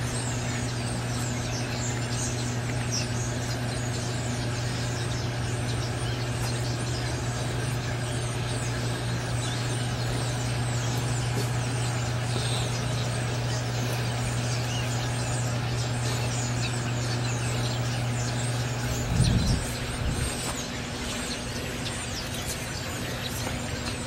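Many small birds chirping over a steady low hum, with a brief low rumble about nineteen seconds in.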